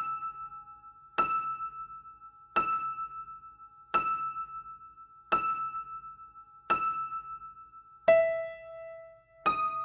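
A bell-like chime struck one note at a time, about every 1.4 seconds, each note ringing out and fading. The same high note repeats five times, then a deeper note sounds about eight seconds in, and the high note returns near the end.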